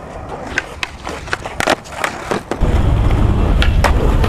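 Skateboard: a few sharp clacks and knocks, then from a little past halfway the loud, steady low rumble of skateboard wheels rolling over rough pavement.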